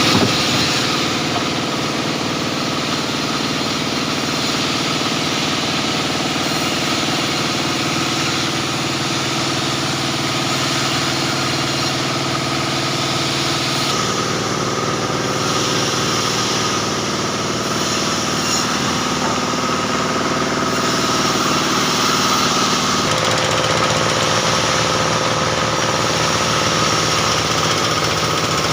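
Engine-driven machinery running steadily with a rapid knocking beat, back in operation. Its tone shifts about halfway through and again later on.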